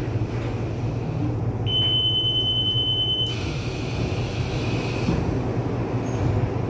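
Train door warning beep on a commuter electric multiple unit: one steady high tone, about a second and a half long, that cuts off abruptly. It sounds over the train's low steady hum while the train stands at the station.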